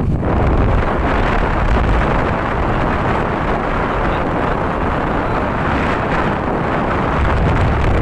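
Wind blowing across a phone's microphone: a steady, loud, rumbling rush of wind noise.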